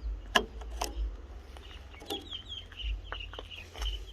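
A bird calling in a quick run of short, high, falling notes from about halfway in, after two sharp clicks in the first second.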